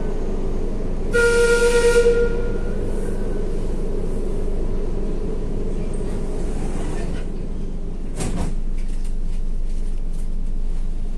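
Madrid Metro Serie 5500 train running, a steady rumble heard from on board, with a short whistle blast of about a second near the start. About eight seconds in comes a sharp knock, then a few lighter clicks.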